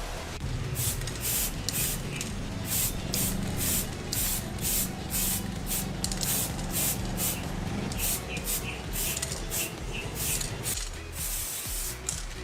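Spray paint hissing in short repeated bursts, several a second, as the wheel hubs are sprayed.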